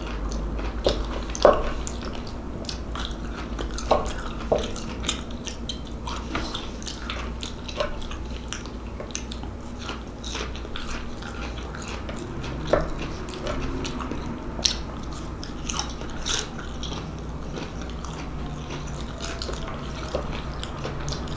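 A person chewing and biting mouthfuls of steamed vegetables close to the microphone, with scattered small crunches and mouth clicks over a low steady hum.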